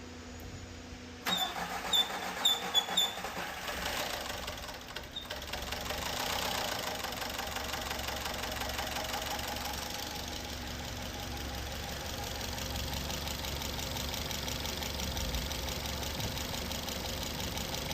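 VW Golf 6's EA111 turbocharged petrol engine starting up after its timing-chain rebuild and oil fill. It catches about a second in with a few sharp bursts and short chirps, then settles into a steady idle.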